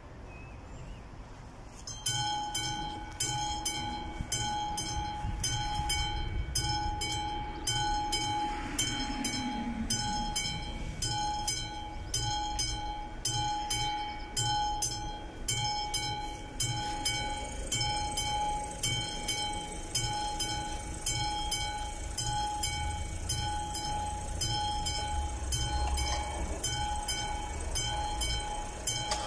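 A classic level-crossing warning bell starts about two seconds in and rings with rapid, evenly spaced strokes, signalling that the barriers are about to come down for an approaching train. Road vehicles idle and pass beneath it.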